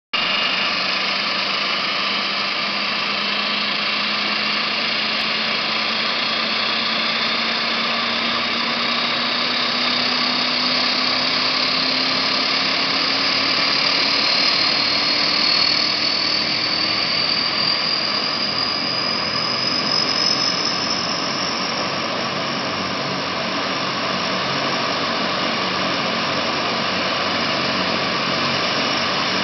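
Lockheed C-130 Hercules's Allison T56 turboprop engines running during start-up, with a high turbine whine that climbs in pitch over about the first twenty seconds and then holds steady, as an engine spools up.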